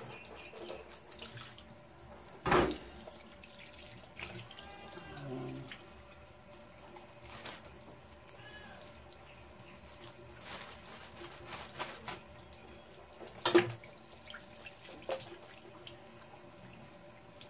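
Kitchen tap running steadily into a stainless steel sink as a chicken gizzard and a wooden cutting board are rinsed under the stream. Two sharp knocks stand out, one a few seconds in and another about eleven seconds later.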